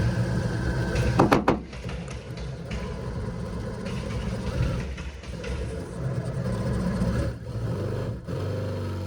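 A vehicle engine running steadily at idle, with a short loud clatter about a second in.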